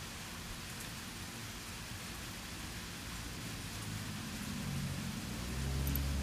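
Steady hiss of light rain falling on pavement. A low hum with several pitches comes in about halfway through and grows louder toward the end.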